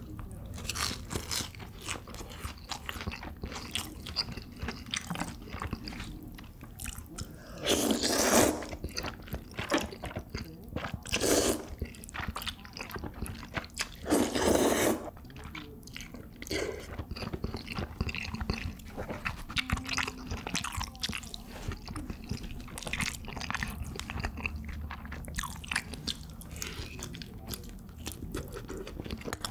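Close-up eating sounds: crisp glutinous-rice sweet-and-sour pork (chapssal tangsuyuk) crunching and being chewed. Three louder slurps, about 8, 11 and 14 seconds in, come from sucking up jajangmyeon noodles.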